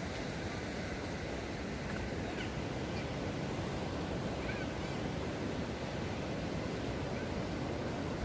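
Sea surf washing steadily onto the shore and against the rocks.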